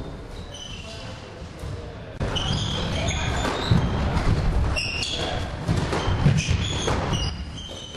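Ball-game play on a wooden indoor court: running footsteps, sneakers squeaking and a ball thudding, echoing in the hall, with players' voices. It gets much louder about two seconds in and drops back near the end.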